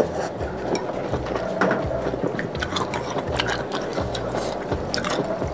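Close-up eating sounds: slurping and chewing rice noodles in spicy broth, a quick irregular run of wet clicks and smacks.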